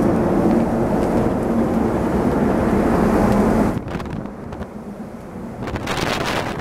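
Steady drone of a ferry's machinery on the open deck, a loud noise with a low hum in it, which drops away sharply about four seconds in. Near the end, wind buffets the microphone.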